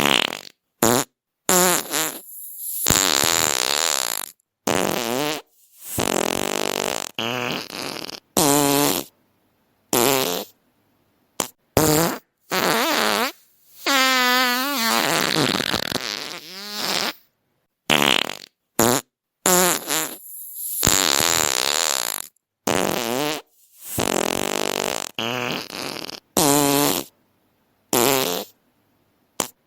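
A string of about twenty fart sounds, one after another with dead silence between them. Some are short and sharp, others long and drawn out with a wobbling pitch; the longest, near the middle, lasts about three seconds.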